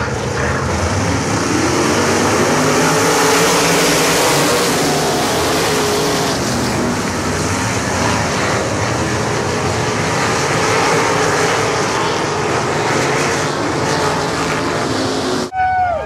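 A pack of winged sprint cars racing, many engines running hard together, their pitch rising and falling as they go by. The sound cuts off abruptly near the end.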